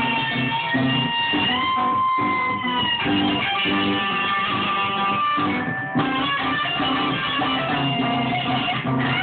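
Electric guitar playing an improvised blues lead, with held notes bent up and let back down, over a steady repeating low rhythm part; the lead pauses briefly about six seconds in, then carries on.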